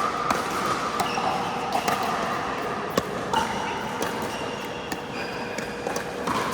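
Pickleball play on an indoor court: paddles striking the ball and the ball bouncing make sharp pops at uneven intervals over a steady background of hall noise.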